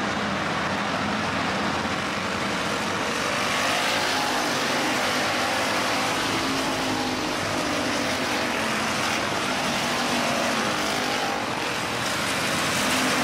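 IMCA Hobby Stock race cars running at speed in a feature race, several engines blending into one steady, loud engine noise with faint rising and falling pitches as cars pass.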